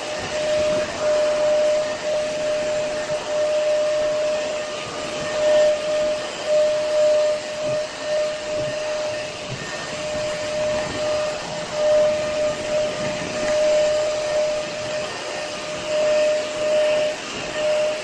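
A floor-care machine's motor running steadily on a hardwood floor, with a whine that keeps breaking off and returning every second or so.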